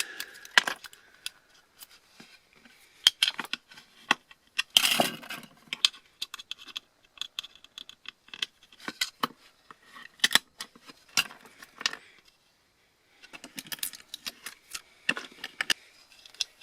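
Small metal parts and tools of a dismantled laptop hard drive being handled, clinking and tapping against each other and the work surface in scattered, irregular clicks. The clicks come most densely about five seconds in and stop briefly around twelve seconds.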